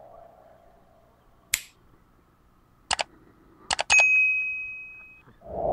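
Subscribe-reminder animation sound effects: a sharp click, a double click about a second and a half later, two more quick clicks, then a bright notification-bell ding that rings out for about a second.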